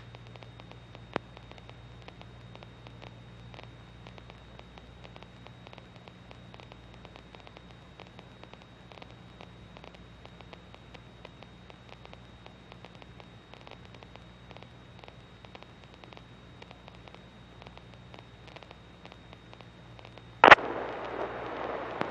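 Aircraft radio and intercom audio between transmissions: a low hiss with faint crackling static and a steady low hum. About twenty seconds in comes a sharp pop, after which the hiss is louder.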